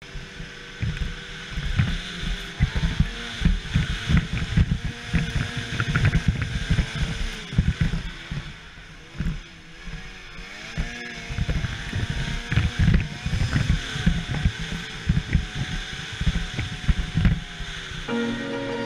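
Ski-Doo XM snowmobile's two-stroke engine running through deep powder, its pitch rising and falling with the throttle, with heavy wind buffeting on the microphone. Music comes in near the end.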